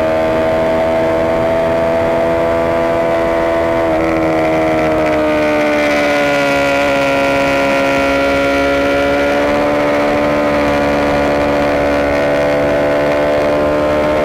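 Honda CBR250R's single-cylinder engine running hard high in the rev range, heard from behind the windscreen. Its pitch sags a little about five seconds in and climbs back up after about ten seconds.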